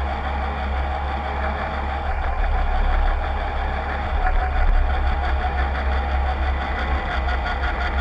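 Steady running of the VSP tug's drive: a deep rumble under a constant whine.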